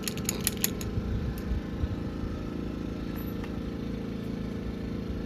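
A torque wrench ratcheting in a quick run of sharp clicks for about the first second as the cylinder nuts are torqued down to spec. Underneath is a steady low mechanical hum.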